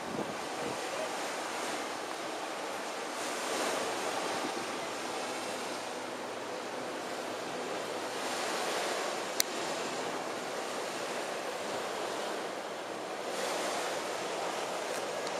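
Sea surf washing onto the shore, a steady rush of waves that swells every few seconds, with one sharp click about nine seconds in.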